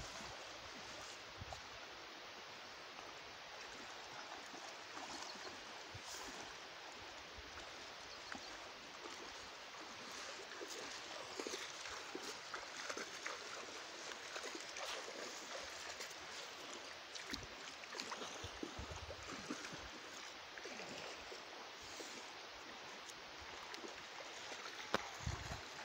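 Shallow river water sloshing and trickling as a cast net is dragged through it by a wading fisherman, with many small splashes and drips. A low bump comes near the end.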